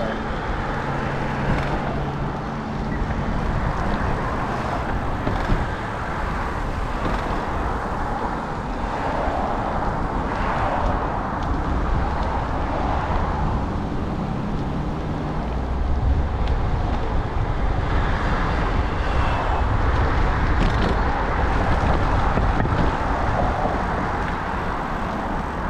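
Steady road traffic noise, cars going by with a continuous rush and low rumble that grows louder about two-thirds of the way through.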